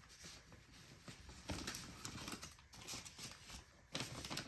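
Faint scattered taps and scrapes from small objects being handled.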